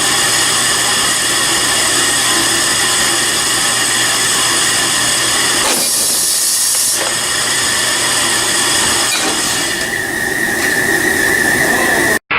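Industrial machinery running steadily with a whine of several steady tones, a brief burst of high hiss about halfway through, and a high tone growing stronger near the end before the sound cuts off abruptly.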